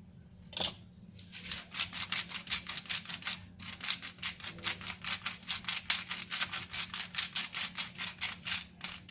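Salt grinder twisted by hand, grinding Himalayan pink salt: a fast, even run of gritty clicks, about five a second, starting about a second in.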